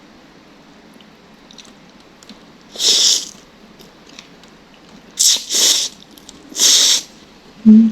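Loud hissing slurps, or air sucked in through the mouth, while eating spicy noodles and chilies: four bursts of about half a second each, the first about three seconds in. A brief low-pitched sound near the end is the loudest moment.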